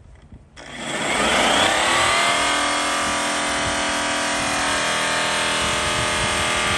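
Rotary polisher switched on about half a second in, whining up to speed over a second or so and then running steadily while buffing an aluminum pontoon tube.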